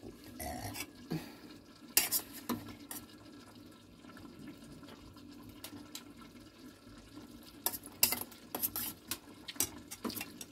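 Stainless-steel cooking pot with a glass lid being handled on the stove: scattered clinks and knocks of metal and glass, a couple about two seconds in and a quick run of light clicks near the end, over a faint steady simmer.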